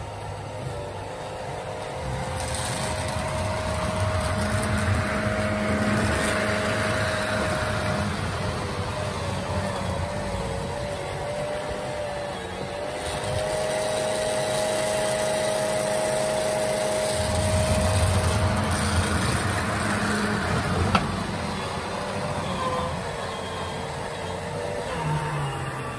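Electric whine of a 3D-printed RC snowblower, its 3660 brushless motor spinning the impeller and throwing powder snow, over the low hum of the tracked chassis. The sound swells twice as the blower bites into the snow, with one sharp tick about three-quarters through.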